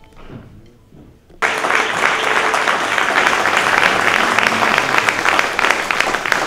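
Audience applause that cuts in suddenly about a second and a half in and carries on as a dense crowd of hand claps.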